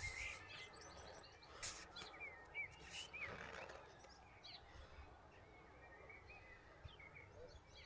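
Faint outdoor ambience: small birds chirping in short, quick calls, busiest in the first half and again near the end, over a low rumble, with a few sharp clicks in the first three seconds.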